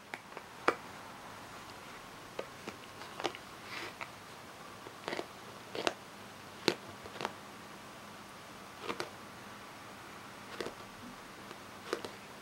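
A kitten chewing and biting on a card hang tag: irregular crinkling clicks and crunches, about a dozen, with two sharper ones about a second in and about halfway through.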